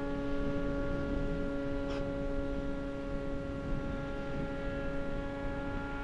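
Electric motor and propeller of an FMS 2000 mm de Havilland Beaver RC plane in flight, a steady whine held at one pitch. Wind rumbles on the microphone underneath.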